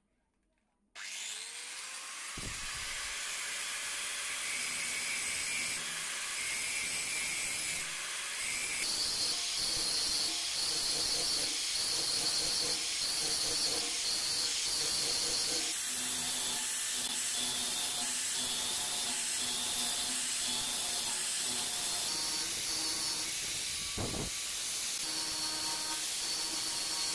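Angle grinder grinding the steel edge of a chisel held in a vise: a steady high whine and hiss. It starts suddenly about a second in, its pitch rising briefly as the motor winds up.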